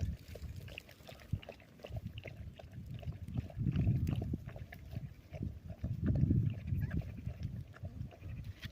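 Puppies grunting in irregular low bursts, loudest about four and six seconds in, with small clicks between.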